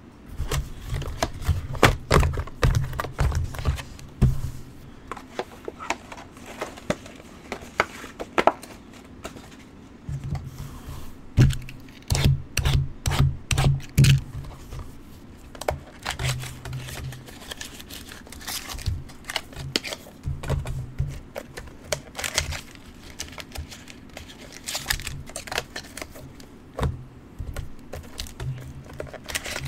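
Hands handling packaging on a tabletop: crinkling and tearing with many irregular clicks and short dull thuds, busiest in the first few seconds and again around the middle.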